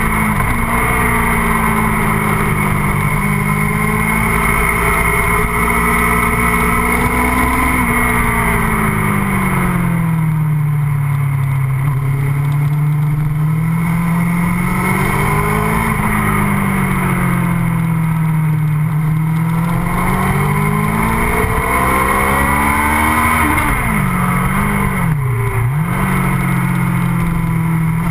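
MV Agusta F4 inline-four engine heard onboard while riding, its revs rising and falling in long slow sweeps through a run of bends. Near the end the revs drop sharply for a moment and climb again.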